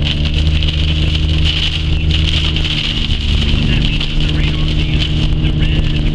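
Vehicle engine running at a steady drone under way, with a steady hiss over it.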